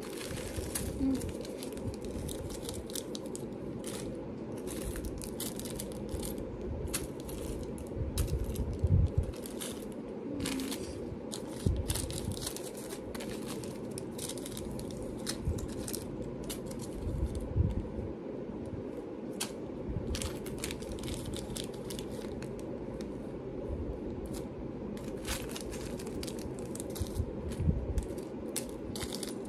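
Small plastic bags crinkling and rustling, with irregular clicks and a few light knocks as jewelry findings are handled and sorted, over a steady low hum.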